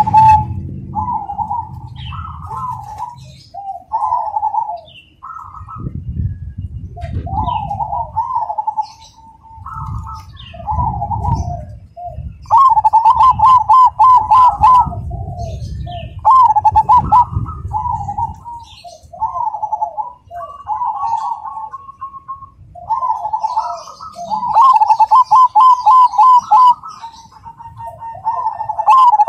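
Zebra dove (perkutut) singing: a rhythmic run of repeated cooing phrases, several of them fast rolling trills, with faint high chirps of small birds in the background.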